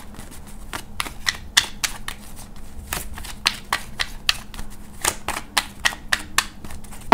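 A deck of tarot cards being shuffled by hand, the cards snapping and slapping together in quick, irregular clicks, a few a second.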